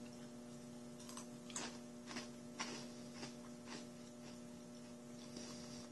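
Faint crunching of thin, shoestring-style fried potato sticks being chewed, about two crunches a second, over a steady low hum.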